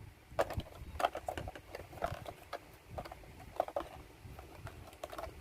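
Irregular clicks, taps and light clatter of plastic toy parts being handled and fitted together by hand.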